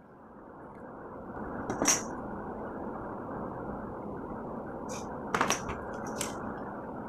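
Steady rushing background noise, with a few sharp clicks and scrapes from a craft knife cutting a small strip of yellow card, once about two seconds in and several times in the second half.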